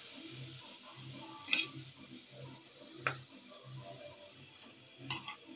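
A metal spoon stirring and clinking against a stainless steel pot of garlic and dried coriander frying in oil, with three sharp clinks about a second and a half apart. Under it runs a faint, regular low ticking, a little more than twice a second.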